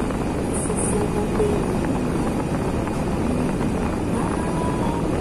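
Steady rumbling background noise with no distinct strikes or breaks, like machinery or ventilation running.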